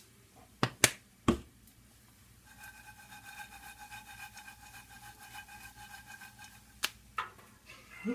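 Two or three sharp knocks of a metal pan and lid being handled, the loudest about a second in. They are followed by about four seconds of a steady whirring whine with a fast flutter, which stops with a click near the end.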